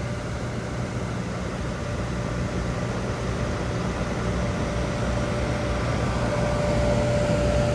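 FMC M10000 30-ton aircraft ground air conditioning cart running in vent mode, its generator set and blower pushing air through the delivery hose: a steady mechanical drone with a low hum and a steady tone, growing gradually louder.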